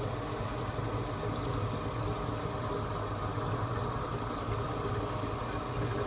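Steady hum of reef aquarium equipment, with water running through the tank's plumbing.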